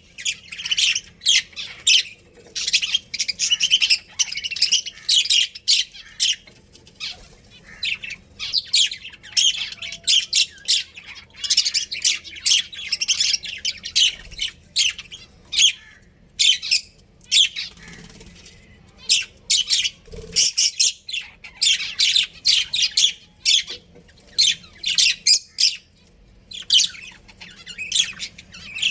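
A flock of budgerigars chirping and chattering: many short, high-pitched calls in quick succession, broken by a few brief pauses.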